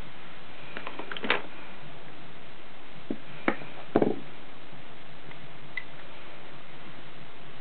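Small clicks and taps of makeup tools and containers being handled and set down: a few around one second in, a louder cluster at three to four seconds, and a faint tick near six seconds, over a steady background hiss.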